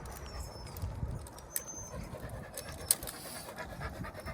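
Dogs on a walk, panting and moving about, with scattered light clicks. A bird gives short high whistles near the start and again about one and a half seconds in.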